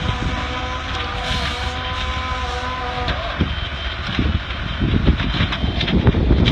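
Large building fire: a steady low rumble with a steady hum that drops in pitch about three seconds in. After that come dense, irregular pops and crackles that grow louder toward the end.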